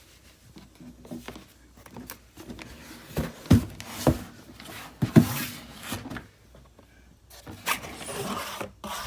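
Cardboard packaging being handled and opened by hand: a few sharp knocks and taps, the loudest three in the middle, with rustling of box and paper inserts near the end.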